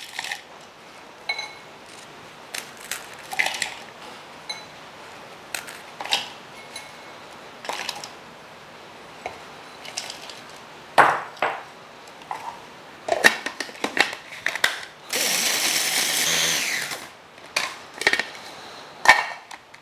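Crunchy biscuits (bizcochos) being broken by hand and dropped into the plastic bowl of a small electric food processor, a scatter of short cracks and taps. About 15 s in, the food processor runs for about two seconds, grinding the biscuits into crumbs.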